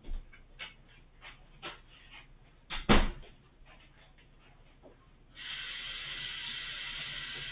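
Scattered light clicks and knocks of handling in a kitchen, with one loud sharp knock about three seconds in, then a tap turned on about five seconds in and water running steadily into the sink.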